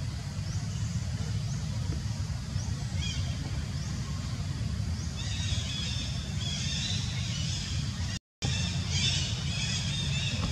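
Outdoor ambience: a steady low rumble with short, high chirping calls repeating from about three seconds in, thicker in the second half. The sound cuts out for a moment near the end.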